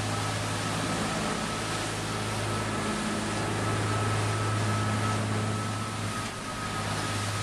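Boat's engines running steadily at speed, a low drone under a loud even rush of wind and churning wake water.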